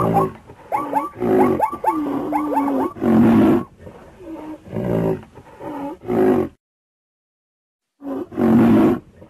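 Animal-call sound effects: several loud, deep roars with higher wavering calls between them. The calls break off for about a second and a half, then one last roar comes near the end.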